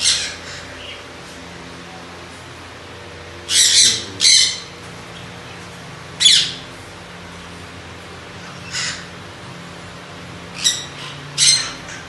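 Caged parrots squawking: short, harsh, shrill calls, about eight in all, a few seconds apart, with two quick pairs.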